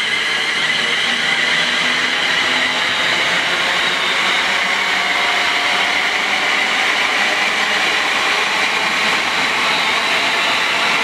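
Class 390 Pendolino electric train running on the line, a steady rush of noise with a high electric whine laid over it.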